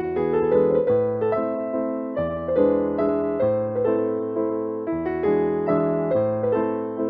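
Background piano music: a steady run of notes over lower bass notes that change about every second.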